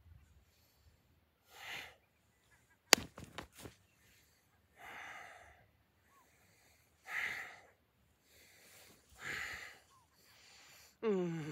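Heavy, audible breaths, each a breathy rush of about half a second to a second, coming roughly every two seconds in time with slow movement. A cluster of sharp clicks about three seconds in is the loudest event. Near the end a voiced tone starts and falls in pitch, like a sighing vocal sound.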